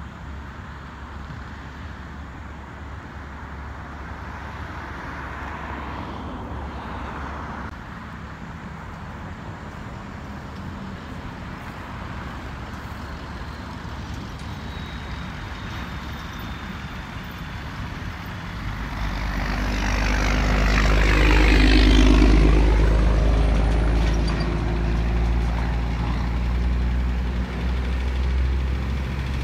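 Road vehicles passing over a steady low rumble: a faint one about six seconds in, then a heavy vehicle's engine passing close, swelling from about nineteen seconds to its loudest a few seconds later and staying loud after.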